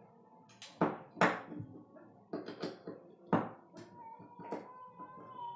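A handful of short, sharp clicks and knocks as a plastic three-pin plug and a screwdriver are handled on a tabletop. A faint thin tone comes in over the last couple of seconds.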